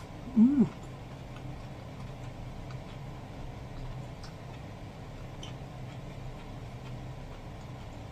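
Close-miked eating: a brief pitched vocal sound about half a second in, then faint chewing clicks over a steady low hum.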